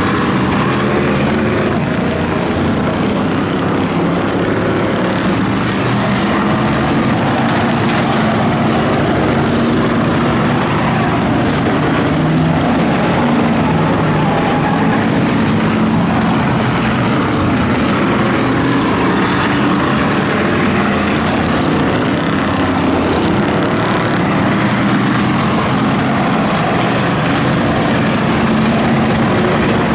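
Engines of several V8 enduro race cars running together at speed: a steady, loud drone of overlapping engine notes that waver up and down in pitch.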